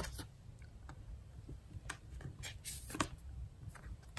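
Moonology oracle cards being drawn from the deck and laid down on the table: faint slides and light taps of card stock, a handful of separate ones, over a low steady room hum.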